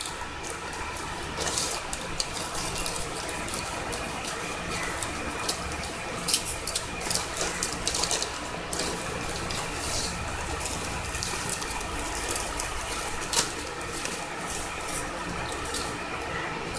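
Plastic courier mailer being snipped with scissors and pulled apart, then bubble wrap crinkling as the wrapped item is handled: irregular rustling with many short sharp crackles.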